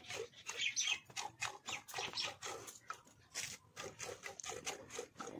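A cow being milked by hand into a steel pail: jets of milk squirting into the bucket in a steady rhythm, about three squirts a second.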